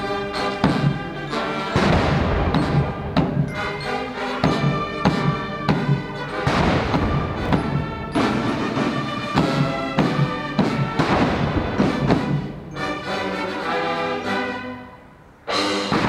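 Military band playing a national anthem on brass with a steady drum beat. The music drops away briefly near the end, then comes back in loudly.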